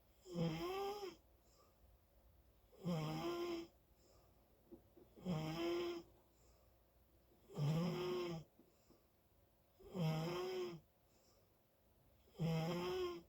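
Loud snoring: six pitched snores at a steady rhythm, one about every two and a half seconds, each lasting under a second, with quiet breathing gaps between them.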